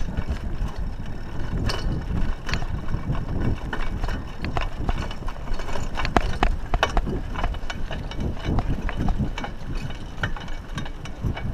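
Raleigh Ascent 26 mountain bike rolling over a bumpy dirt track: irregular clicks and rattles from the bike over a steady low rumble of wind buffeting the chest-mounted microphone.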